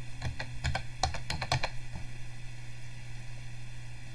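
Typing on a computer keyboard: a quick run of about a dozen key presses in the first two seconds, then it stops.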